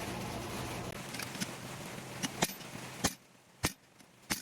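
Hammer blows on a blacksmith's guillotine tool isolating a steel bar: a run of sharp single strikes, about two a second, in the second half. They play over a steady hiss and hum that drops out about three seconds in.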